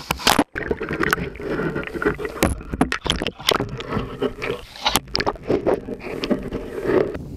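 Handling noise from an underwater camera being plunged into lake water and moved about: irregular muffled knocks and scrapes against its housing, with water sloshing.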